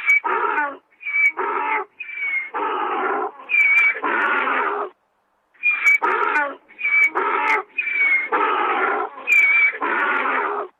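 An animal calling again and again: each call is a short high squeaky note followed by a longer harsh, lower note, with a short break about halfway through.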